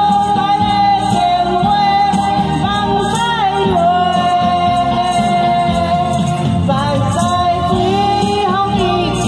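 An elderly woman singing into a microphone over instrumental accompaniment, holding long notes, the longest about four seconds in.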